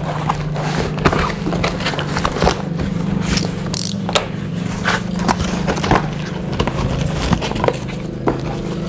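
A cardboard carton being opened and rummaged through: the flaps scrape and the plastic-wrapped packages inside rustle and crackle in many short irregular bursts, over a steady low hum.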